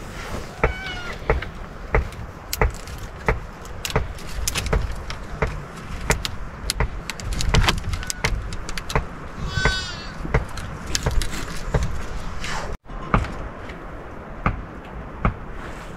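Sheep bleating twice: a short bleat about half a second in and a longer, wavering one near the middle. Frequent clicks and knocks of wooden poles being handled run throughout.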